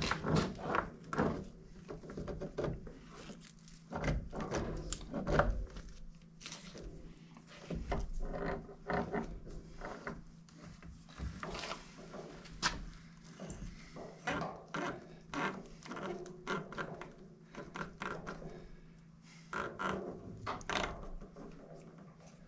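Rubber propane hose being pushed and worked through a freshly drilled hole in a log wall: irregular scraping, rubbing and light knocks of hose against wood.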